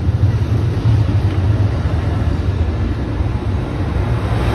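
Amtrak Pacific Surfliner bilevel passenger train rolling slowly past along the platform, a steady low rumble.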